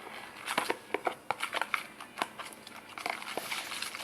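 Spoon stirring a thick mix of white glue, paint and baking soda in a bowl, making irregular sticky clicks and smacks as the paste is worked.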